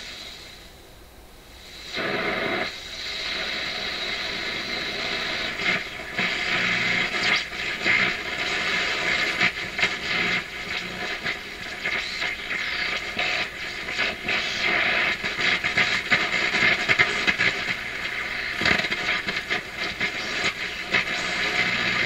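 PYE 39HC valve shortwave receiver on the broadcast band putting out a hissy, crackling static with steady tones through its speaker, the 'funny tone thing' of a set that is not receiving properly. The sound is low for about the first two seconds, then comes up and holds.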